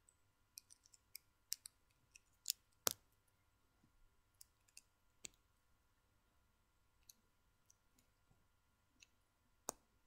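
Small plastic Lego pieces clicking as they are handled and pressed together, in scattered sharp clicks: a run of them in the first three seconds, the loudest about three seconds in, then sparser clicks and one more loud click near the end.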